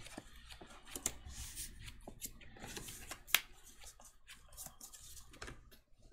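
Sleeved Magic: The Gathering cards being handled, picked up and set down on a cloth play mat: a string of irregular light clicks and scrapes, with one sharper click about three and a half seconds in.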